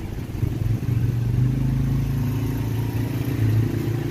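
A motor vehicle engine running steadily, a low hum that gets a little louder about a second in.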